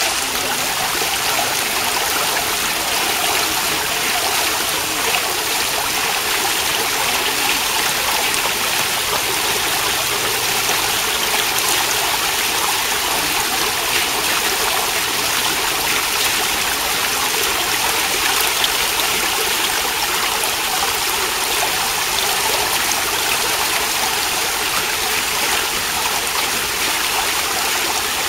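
Steady rushing of running water, even and unbroken.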